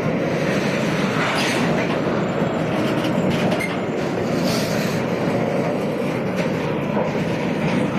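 A train of railway oil tank wagons rolling past: a steady noise of steel wheels running on the rails, with occasional clicks as the wheels pass over rail joints.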